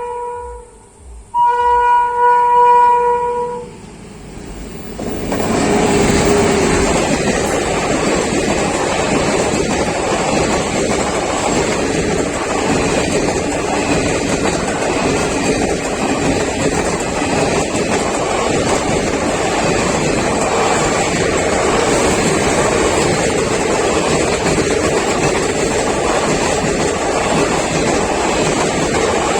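Express train's locomotive horn sounding: one blast ending just as the sound begins, then a longer blast of about two seconds. From about five seconds in, a loud steady rush of the train's wheels and coaches passing at speed over the level crossing.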